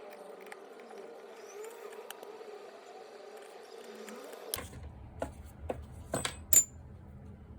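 A steady background hum, then, after an abrupt change, several sharp clicks and knocks of small parts being handled while the reciprocating saw is taken apart. The last one, a little after halfway, is the loudest, with a brief metallic ring.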